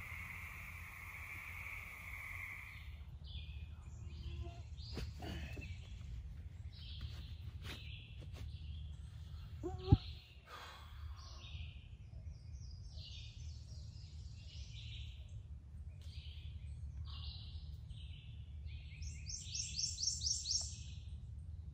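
Night crickets chirring steadily for the first few seconds, then morning woodland birdsong: scattered chirps and calls, with a fast trill near the end. A single sharp knock about halfway through is the loudest sound, over a low steady rumble.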